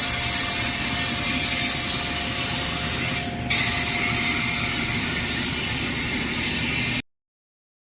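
Pillow filling machine running with a steady hiss of blown air and a constant hum. The hiss dips briefly a little after three seconds, comes back brighter, and the sound cuts off abruptly about seven seconds in.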